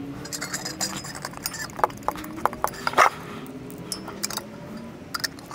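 Screwdriver work on a metal pump in fast-forward: scattered quick metal clicks and clinks, the sharpest about three seconds in, over a faint wavering hum.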